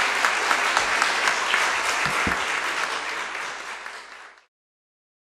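Audience applauding at the end of a talk: a dense patter of many hands clapping that thins and fades out about four seconds in.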